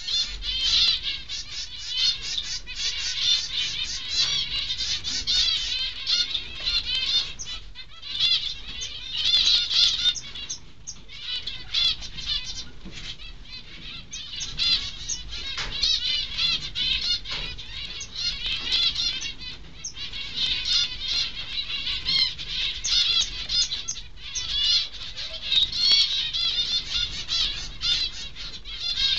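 Zebra finches chirping: a dense, continuous chatter of quick high-pitched calls, thinning briefly about ten seconds in and again near twenty-four seconds.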